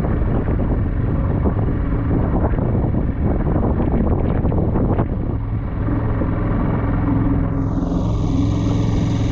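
Wind buffeting the microphone of a moving inflatable dinghy, with water rushing and crackling, cuts off about five seconds in. Background music follows, with steady low notes and a shimmering gong-like swell near the end.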